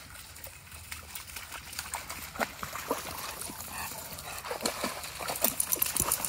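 Leonberger dogs splashing through shallow stream water, the splashing getting busier and louder near the end.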